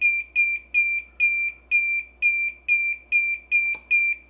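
Continuity-tester beeper of an LM317 power-supply kit sounding a high-pitched beep that repeats about twice a second. The beeping is annoying, and it signals continuity between the probes.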